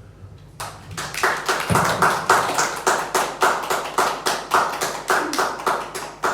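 A small audience clapping, the separate claps clearly heard, starting about half a second in.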